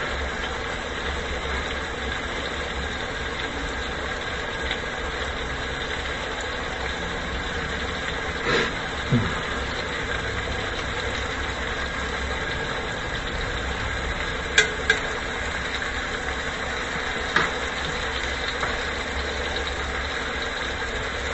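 Rib-eye steak frying in butter in a skillet, a steady sizzle, with a few light clicks.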